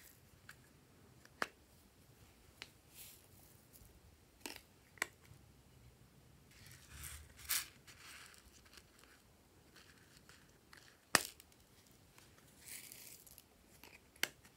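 A heart-shaped plastic toy makeup palette being handled and pried open: scattered sharp plastic clicks and snaps, the loudest about two-thirds of the way through, with two short spells of crinkly rustling, in the middle and near the end.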